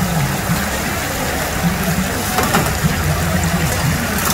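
Battered chicken pieces deep-frying in a large wok of hot oil: the oil bubbles and sizzles with a steady hiss.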